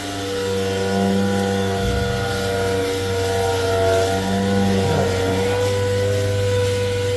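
A motor or engine running steadily with a constant low hum, getting slightly louder about two seconds in.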